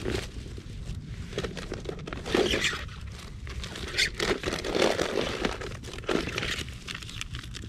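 Hands rummaging in a backpack: fabric and gear rustling and a plastic food wrapper crinkling, in irregular bursts with small clicks and scrapes.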